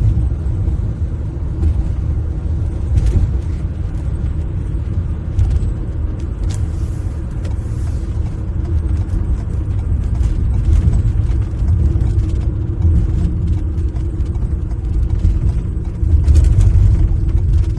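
Steady low rumble of a moving vehicle, engine and road noise heard from inside the cab while driving, with a few faint clicks and rattles.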